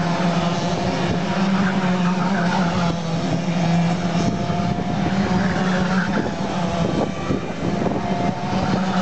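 Several racing kart engines running as the karts lap the track, a steady drone whose pitch shifts and rises as karts accelerate past, with a rising glide about two thirds of the way through.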